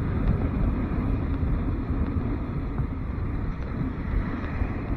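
Motorcycle riding along a street: wind noise over the bike-mounted microphone mixed with the engine and tyre noise, steady throughout.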